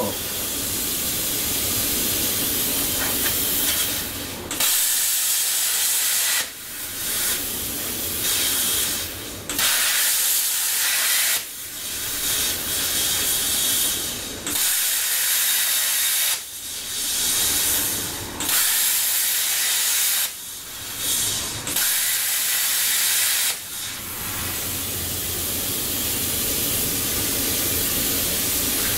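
Longevity Forcecut 40D plasma cutter hissing with its air and arc. Through the middle of the stretch it cuts out and comes back every second or two, then runs steadily again near the end.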